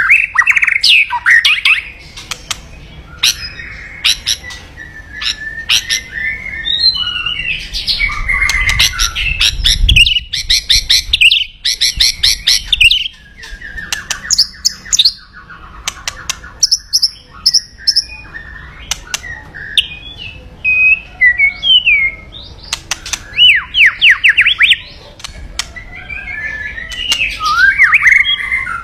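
White-rumped shama (murai batu) singing a loud, varied song of whistled phrases and fast runs of repeated notes, with short pauses between phrases.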